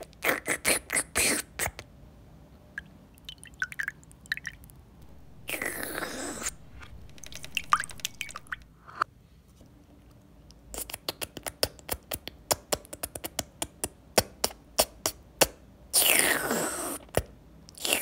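Comic sound effects dubbed over an acrylic paint pour: runs of quick wet clicks, with two longer sliding sounds that fall in pitch, about six seconds in and about sixteen seconds in.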